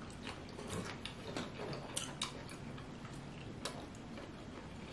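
Close-miked eating of king crab and shrimp: quiet chewing with soft, irregular wet mouth clicks and smacks, a few of them sharper.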